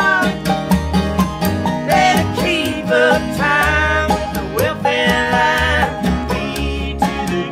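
Background music with a steady beat, part of the song laid over the video.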